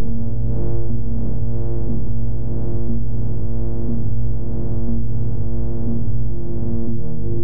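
Synthesized drone from a Max/MSP wavetable synth: two sustained low voices, at about 50 Hz and 115 Hz, playing a wavetable made from a noise-gradient basis function graph, through a low-pass filter. The tone is steady, with a slow, gentle swelling in level.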